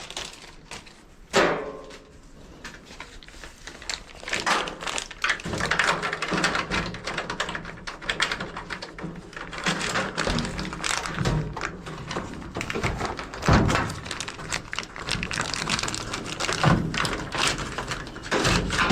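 Irregular taps, clicks and rustling of hands working on a washing machine's wiring and plastic parts, with a sharp knock that rings briefly about a second and a half in and another strong knock past the middle.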